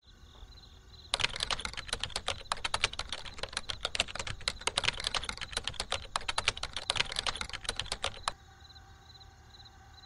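Rapid typing on a keyboard: a dense run of clicks lasting about seven seconds, starting about a second in and stopping sharply near the end. Under it runs a faint steady drone with a soft pulsing high tone.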